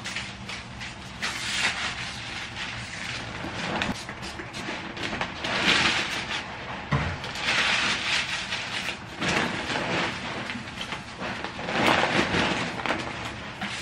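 Plastic bags and the plastic sheeting over a mattress crinkling and rustling as they are handled, in repeated bursts with short crackles.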